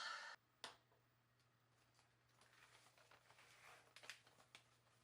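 Near silence: room tone with a steady low hum, a single sharp click just under a second in, and faint scattered ticks and rustles through the middle.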